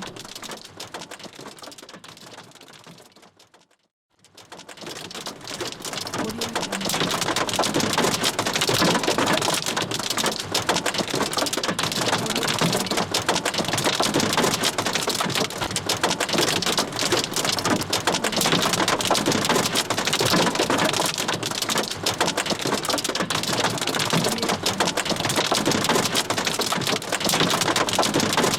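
Hail drumming on a car's metal roof: a dense, fast patter of countless small ice impacts. It fades away to silence about four seconds in, then fades back up and carries on steadily.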